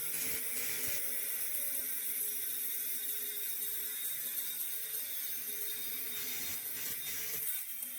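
Angle grinder working steel pipe: a steady, high-pitched hiss and whine.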